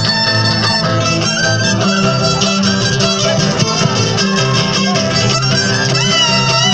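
Live band music played through stage loudspeakers: acoustic and electric guitars over a steady, repeating bass line.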